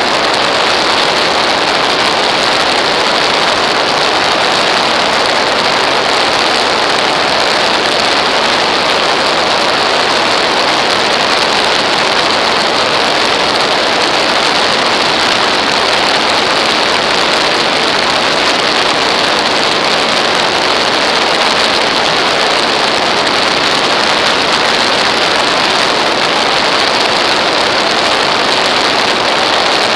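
Steady, loud rush of airflow over a wing-mounted camera on an aircraft in flight, with the aircraft's engine noise blended into it.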